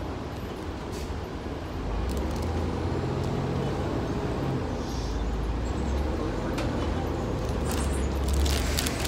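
A 2005 Gillig Low Floor transit bus's engine, heard from inside the cabin, getting louder about two seconds in as the bus pulls away from a stop and accelerates. There is a run of clicks and rattles near the end.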